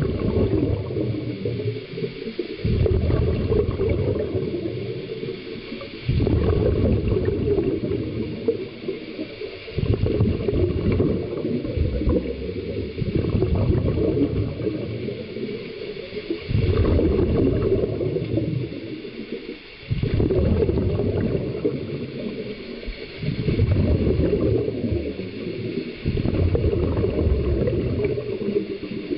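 Underwater breathing of a scuba diver in a full-face mask. Exhaled bubbles gurgle out of the regulator in a burst with each breath, about every three to four seconds, with quieter inhalations between.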